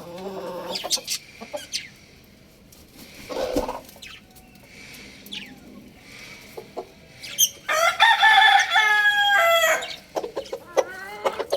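Young rooster crowing once, a long call of about two seconds held on steady pitches, beginning a little past the middle. Chickens cluck in short calls before it and in a quick run near the end.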